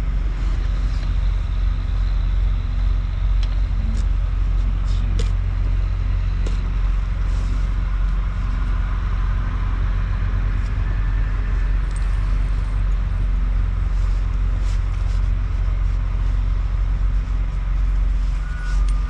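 Steady low hum of an idling vehicle engine, with light metallic clinks now and then as steel tire chain and a chain repair tool are handled.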